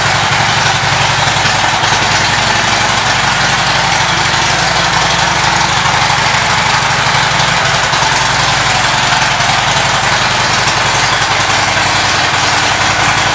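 2010 Harley-Davidson Ultra Classic's air-cooled V-twin engine idling steadily.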